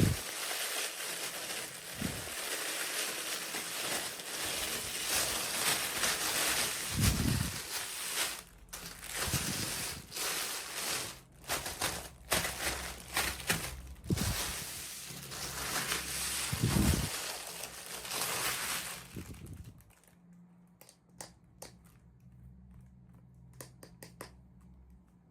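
Packaging being crinkled, crushed and torn open by hand during a toy unboxing, with a few dull bumps. The handling stops about two-thirds of the way in, leaving only scattered small clicks and taps.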